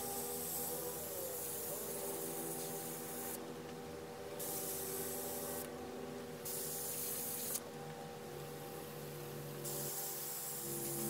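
Gravity-feed airbrush spraying black paint in repeated bursts of hissing air, the trigger pressed and released about five times, each burst one to three seconds long.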